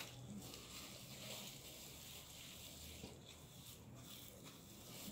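Near silence: faint room tone with a weak, steady low hum.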